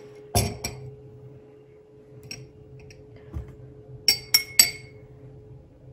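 Glass drinking glasses clinking on a countertop: two dull knocks near the start, then three quick sharp clinks with a short ringing tone about four seconds in.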